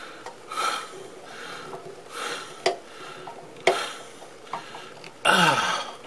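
A screwdriver working a terminal screw to fasten a ring-terminal ground wire: metal scraping and clinking, with two sharp clicks in the middle and a longer, louder rasp with a falling pitch near the end.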